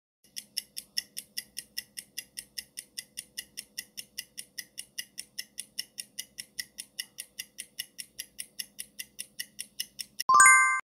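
Countdown-timer sound effect: a clock ticks fast and evenly, about five ticks a second, then a loud bell-like ring about ten seconds in marks that time is up.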